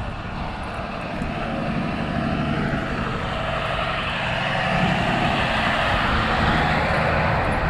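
A garbage truck running steadily, with a low rumble under a broad mechanical hiss. It grows louder over the first few seconds and then holds.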